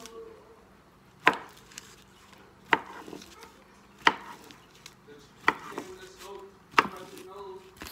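Kitchen knife chopping through a smoked sausage on a countertop: five sharp knocks, evenly spaced about a second and a half apart.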